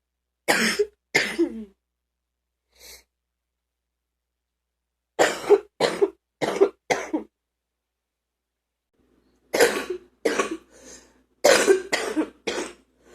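A woman coughing in fits: two coughs, then four about five seconds in, then a longer run of about seven from a little before ten seconds in.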